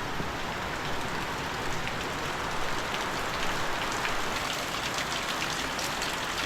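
Steady rain falling, with many individual drop hits.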